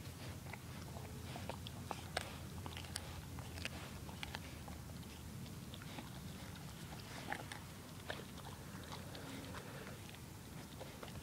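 Dog chewing and gnawing on a piece of meat: irregular sharp crunches and clicks of its teeth biting down.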